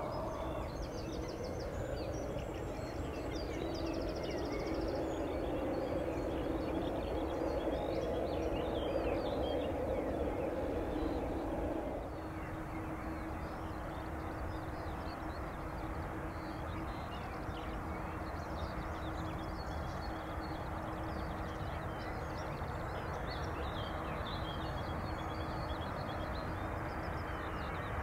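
Birds chirping and calling over the steady hum of distant jet aircraft engines. The hum eases slightly about twelve seconds in, leaving a steady low tone.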